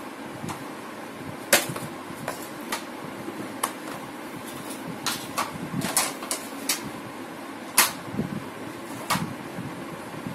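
Hard plastic toy-kitchen panels clacking and knocking as they are handled and set down on a tiled floor: irregular sharp knocks, a loud one about a second and a half in and another a little past the middle. A steady low hum runs underneath.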